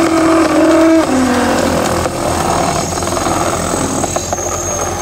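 Hydraulic log splitter running under load as a coconut-palm log is forced through its splitting wedges, with a steady machine hum throughout. A pitched whine strains through the first second, then drops lower and fades. A few sharp knocks come near the end.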